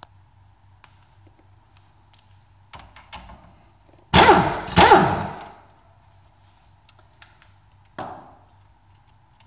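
A power wrench spinning the 11/16 nut off the upper ball joint of a classic Mini's front suspension: two loud bursts, each rising and falling in pitch, a little past halfway. A short metallic scrape follows near the end as the loosened nut is handled.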